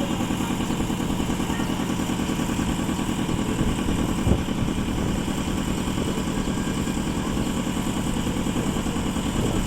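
Engine of a concrete mixer running steadily with a fast, even beat, and one sharp clank about four seconds in.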